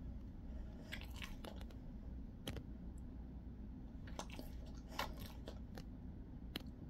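Jindo-mix dog chewing, with irregular sharp crunches that come in loose spells over several seconds.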